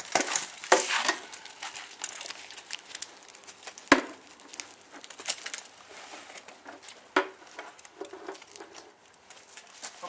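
Armour being put on: rustling of a quilted padded jacket and clinking and clattering of a dark plated armour vest pulled on over the head, with sharp knocks about four seconds in and again about seven seconds in.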